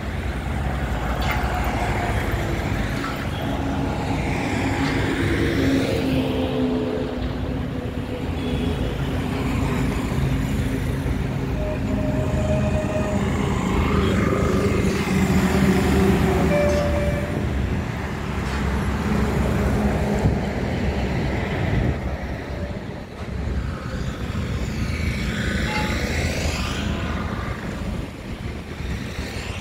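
Road traffic passing close by: motorcycles, scooters, cars and a three-wheeled goods carrier, engines running and tyres on the road. The sound swells and eases as each vehicle goes by.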